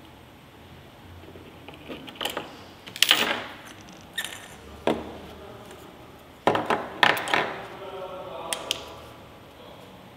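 Small 3D-printed plastic parts being handled and pressed together by hand, an irregular run of sharp clicks and short scrapes as a printed tyre is worked onto its wheel hub; the loudest clicks come about three seconds in and again in a cluster around six to seven seconds in.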